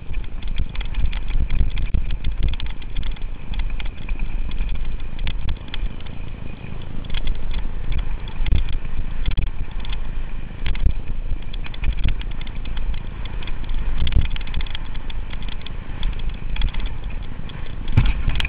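Mountain bike riding fast down a dirt singletrack: wind buffeting the microphone and tyres rumbling on the dirt, with a constant clatter of chain and frame rattling over bumps. A sharper knock comes near the end.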